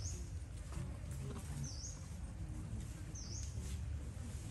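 A bird calling over and over, a short high note that dips and rises again, repeated about every second and a half, over a steady low rumble.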